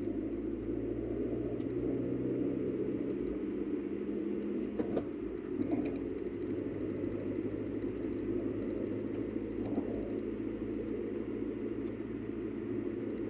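Steady low rumble of a car's engine and tyres on the road, heard from inside the cabin while driving, with a few faint knocks about five seconds in and again near the ten-second mark.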